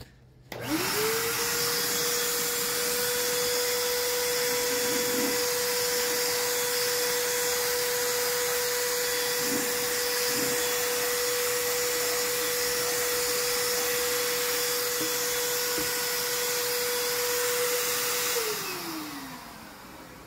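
Schulz handheld electric paint spray gun, set to its minimum flow, switched on about half a second in. Its motor spins up to a steady whine with a rush of air while it sprays paint. Near the end it is switched off and the whine falls away as the motor spins down.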